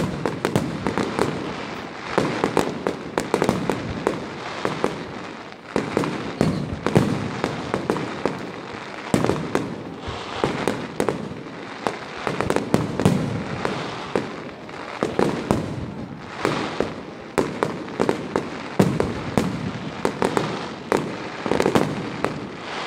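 Fireworks display: aerial shells bursting in a continuous barrage. Sharp bangs come many times a second and overlap, with louder bursts about every second.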